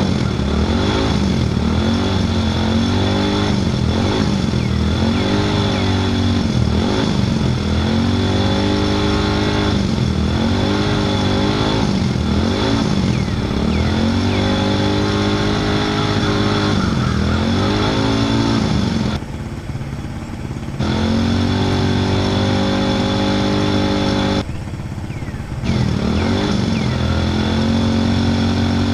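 Vehicle engine revved over and over, its pitch rising and falling every second or two, with two short dips in level late on.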